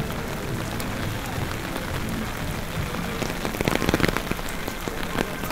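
Steady rain falling, with a louder stretch of close, sharp drop clicks about three and a half seconds in.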